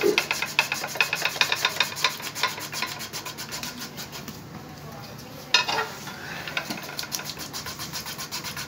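Hand-cranked rotary potato chips slicer, its stainless steel blades shaving a raw potato into thin slices in a fast, even run of scraping strokes, several a second. One louder knock about five and a half seconds in.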